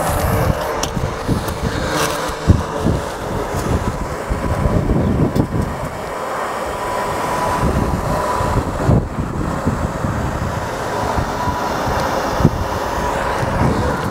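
Uneven low outdoor rumble with a few sharp clicks and scuffs, from a caulking gun being worked around a radon pipe's rubber roof boot and boots shifting on asphalt shingles.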